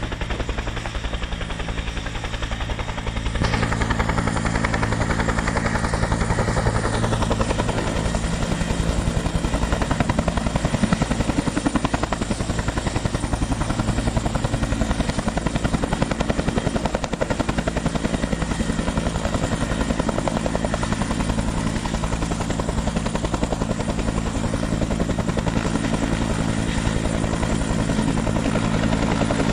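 Firefighting helicopter running close by, its rotor beating fast and steadily; it gets louder about three and a half seconds in.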